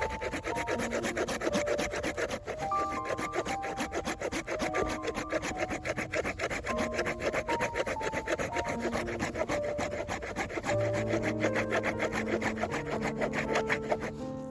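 Rhythmic rasping strokes of a hand saw cutting wood, over background music with a plain melody and a bass line that comes in near the end.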